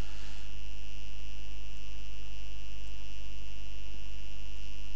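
Steady electrical mains hum, with a thin, constant high-pitched whine above it.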